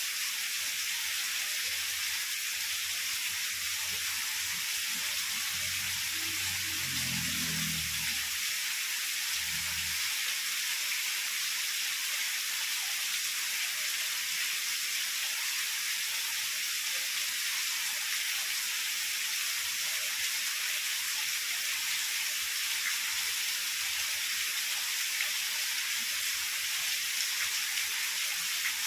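Heavy rain falling steadily in a pine forest, an even hiss. A faint low rumble of distant thunder builds and fades in the first third.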